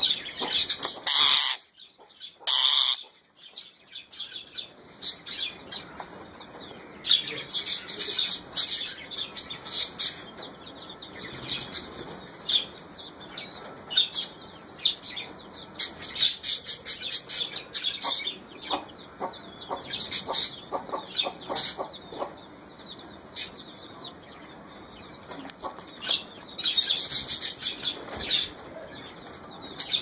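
Rose-ringed parakeet giving harsh, rapid screeching calls in bursts every few seconds, the loudest about a second in and near the end: an agitated, angry bird.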